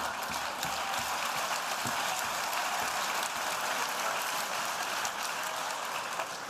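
Audience applauding: a dense, steady clapping that starts to fade near the end.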